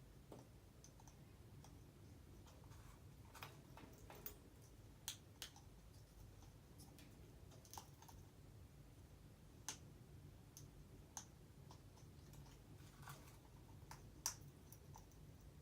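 African grey parrot making faint, sharp clicks, about twenty at irregular intervals, the loudest near the end.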